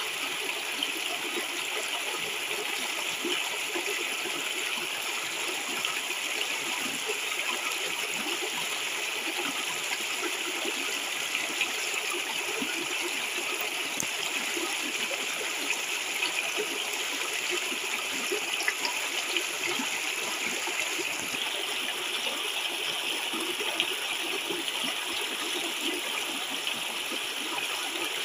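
Shallow river water rushing steadily over a low rocky ledge in a small cascade, splashing and gurgling.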